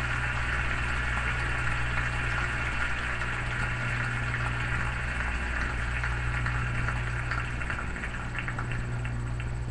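Arena audience applauding, heard through a TV speaker, with a steady electrical hum underneath; the clapping thins out near the end.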